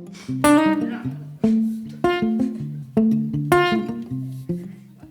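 Acoustic guitar intro: picked notes and ringing chords with a strong pluck about every second, each left to ring and fade.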